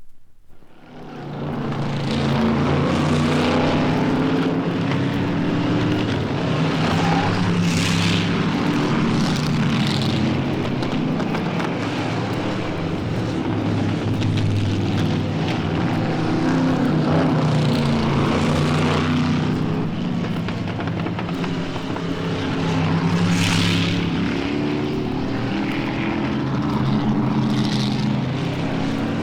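Engine running steadily, its pitch wavering slightly, fading in over the first second or two.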